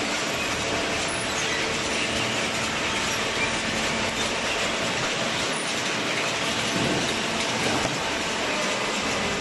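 Horizontal cardboard baler with its infeed conveyor running: a steady, even clatter and hum of industrial machinery.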